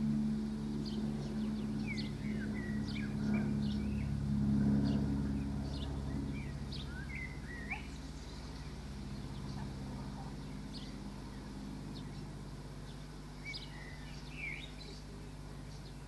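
Small songbirds chirping and singing, short high calls scattered throughout. Low held tones sound underneath and fade out about six seconds in.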